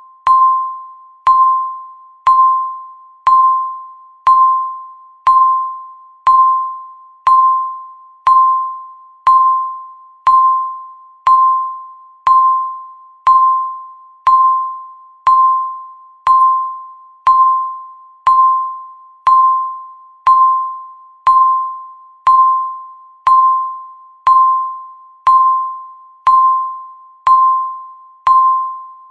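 Countdown timer beeping once every second: each beep is a short, sharp, mid-pitched ding that fades away before the next.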